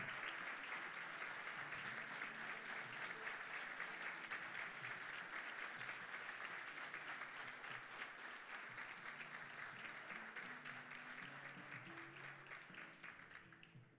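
An audience applauding, the clapping slowly dying away and stopping near the end. Quiet music comes in underneath during the second half.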